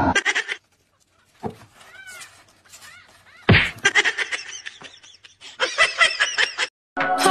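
Newborn animals crying in short, high-pitched, squeaky calls, repeated several times a second, faint at first and louder in the second half, then cut off suddenly.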